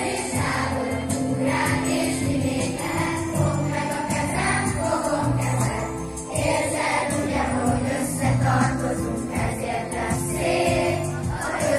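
Schoolchildren singing the school song together as a choir, with instrumental accompaniment that includes a jingling percussion part.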